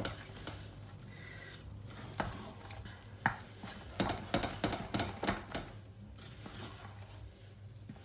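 Wooden spoon stirring a thick, gloopy fruit dumpling mixture in a stainless steel saucepan, with irregular clicks and knocks of the spoon against the pan, coming thickest about halfway through.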